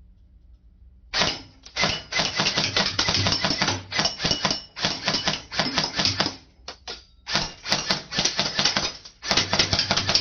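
Lancer Tactical electric airsoft gun firing in rapid bursts, a fast run of sharp clicks. It fires about six bursts, starting about a second in, with short pauses between them.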